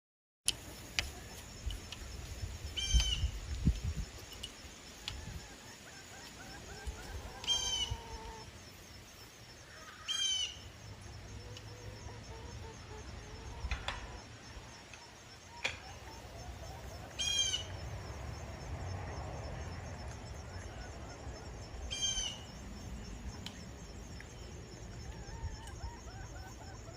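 Birds calling outdoors: about five short, high call phrases spaced several seconds apart, with fainter lower gliding notes between them, over a low rumble.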